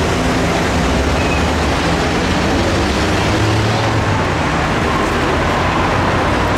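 Steady, even rumble of a Mexico City Metro train in the station.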